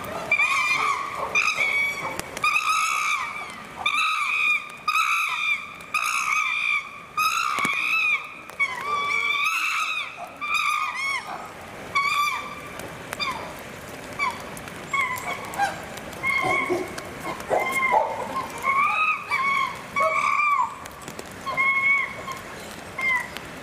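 Excited chimpanzees calling loudly: a long series of high hoots that rise and fall, about one a second, giving way to shorter, sparser calls about halfway through.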